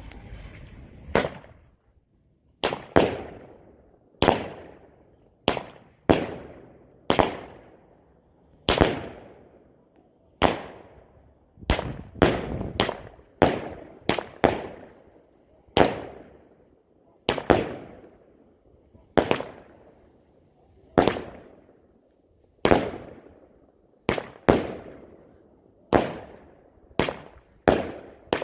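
A 25-shot consumer firework cake with a "fart cough" effect, firing shot after shot. The shots come roughly once a second, sometimes two close together, starting about a second in. Each is a sharp report with a tail that fades over up to about a second.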